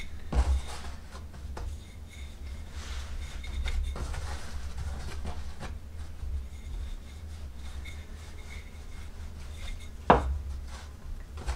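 Wooden rolling pin rolling out small rounds of dough on a floured wooden board: a soft rubbing in repeated strokes, with a knock about half a second in and a sharper knock about ten seconds in.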